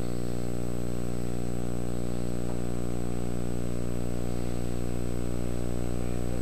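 A steady electrical hum with a stack of evenly spaced overtones and a thin high whine above it. It holds at one level throughout.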